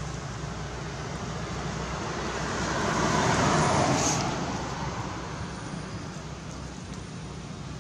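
A road vehicle passing: a steady rush of traffic noise that swells to a peak about three to four seconds in, then fades.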